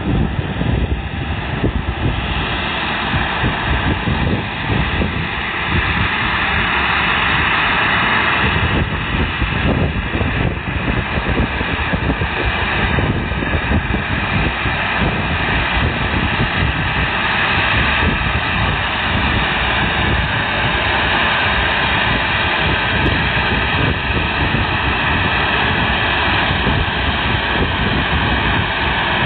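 Jet engines of a Skymark Boeing 737-800 running at taxi power as the airliner rolls in toward the gate: a steady rushing roar that grows a little louder about six seconds in. Wind buffets the microphone throughout.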